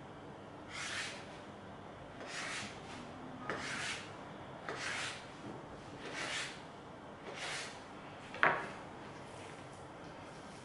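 Kitchen knife slicing through a raw mahi-mahi fillet into the wooden cutting board: about six drawn, hissy cutting strokes a little over a second apart. About eight seconds in there is one sharp knock as the knife is put down on the board.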